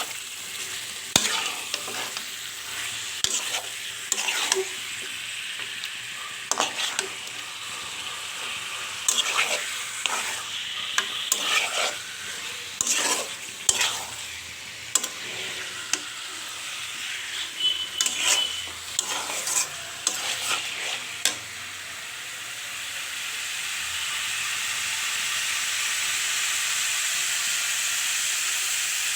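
Chicken pieces sizzling in hot oil and spice paste while a spoon stirs and scrapes the pan, frying the meat in the masala. The scraping strokes stop about three quarters of the way through, leaving a steady sizzle that grows a little louder.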